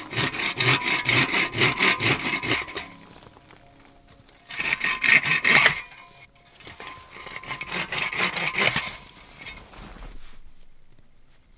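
Hand saw cutting through a spruce limb: quick back-and-forth rasping strokes, about three a second, in three runs with short pauses between.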